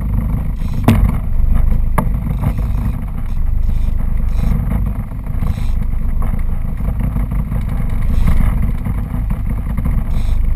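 Boat's engine running with a steady low rumble, with two sharp knocks about one and two seconds in.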